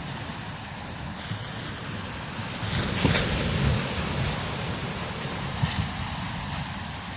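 Strong wind blowing across open desert dunes, with buffeting rumble on the microphone and a hiss of blowing sand; a gust swells about three seconds in and eases off.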